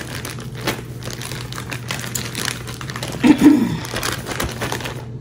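Irregular rustling and crinkling handling noises from kitchen work with the flour dredge, with a brief vocal sound a little past three seconds in and a steady low hum underneath.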